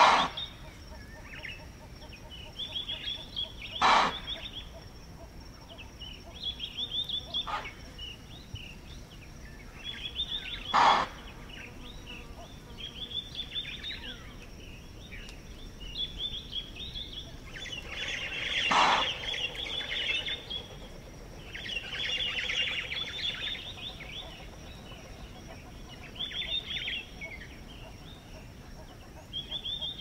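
Impala alarm calls: loud, explosive chuffs given on detecting a predator. There are five short chuffs, the first right at the start, then others spaced several seconds apart, the last about two-thirds of the way through, with birds chirping between them.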